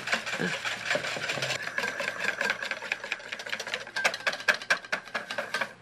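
Wire balloon whisk beating heavy cream by hand in a stainless steel bowl: a rapid, steady clatter of the wires against the bowl, stopping suddenly at the end.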